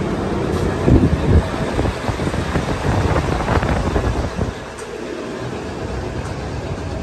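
Low rumbling wind noise buffeting a handheld camera's microphone, with a couple of louder bumps about a second in, easing to a quieter steady rumble after about four and a half seconds.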